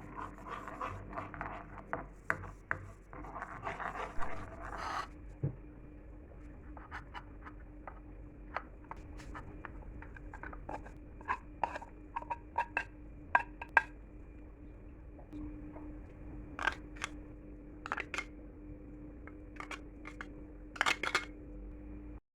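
Small handling sounds: a few seconds of scratchy rustling, then scattered light taps and clicks, over a faint steady hum.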